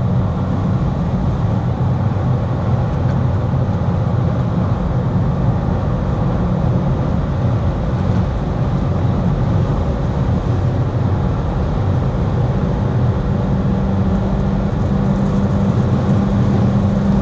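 Mercedes-Benz GLA 200's turbocharged four-cylinder engine pulling steadily under acceleration at high speed, heard from inside the cabin mixed with heavy wind and tyre noise. A steady low engine tone grows stronger in the second half.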